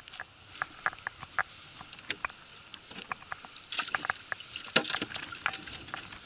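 Irregular taps, knocks and wet slaps from handling freshly netted mullet and dropping them into a plastic cooler, with two louder scuffling bursts a little past halfway.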